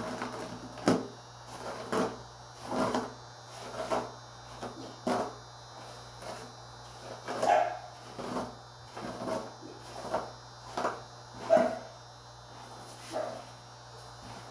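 Dog barking in short single barks, about one a second at irregular spacing, over a steady low electrical hum.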